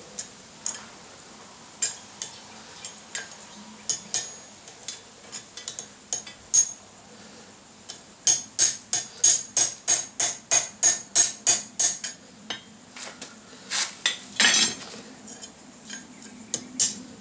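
Hand hammer striking steel on an anvil while straightening a forged piece: scattered single blows, then a fast even run of about four blows a second for roughly four seconds, then a few more blows.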